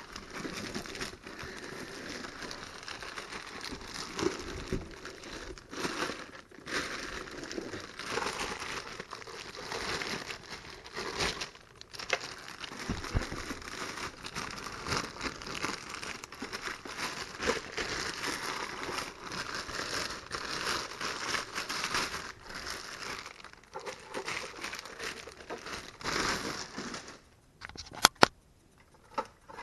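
Plastic packing and bubble wrap being handled and pulled off, a continuous irregular crinkling with brief tearing sounds. Near the end it stops, followed by two sharp clicks.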